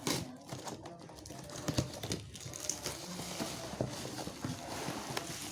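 Unboxing packaging being handled: rustling with many scattered light clicks and taps.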